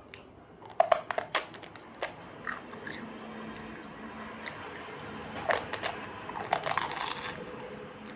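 A person biting and crunching crisp food while eating: a quick run of crunches about a second in, and a second burst of crunching from about five and a half to seven seconds.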